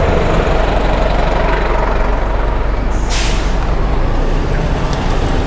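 City traffic passing a moving bicycle, with steady wind and road rumble on a helmet-mounted camera microphone; about three seconds in, a short, loud hiss of air from a heavy vehicle's air brake.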